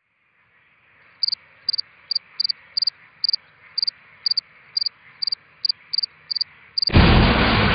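A cricket chirping over a faint hush, with short high chirps two or three a second, some in quick pairs. Near the end a loud sound cuts in suddenly.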